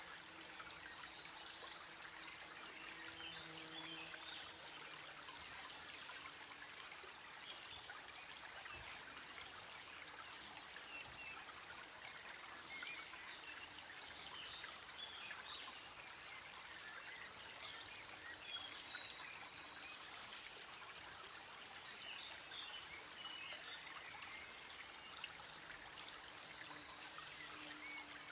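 Faint, steady trickling noise with scattered small high chirps and ticks.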